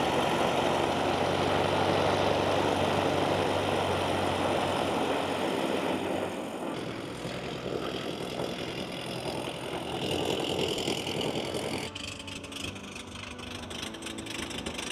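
Light airplane's Lycoming IO-360 four-cylinder engine and propeller running as the plane taxis. It is loudest for the first several seconds, then fades, with a further drop about twelve seconds in.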